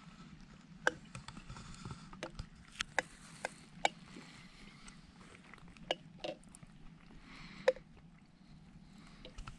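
Scattered small clicks and knocks from handling camping gear and the camera, about half a dozen, some with a short ring, over a faint rustle.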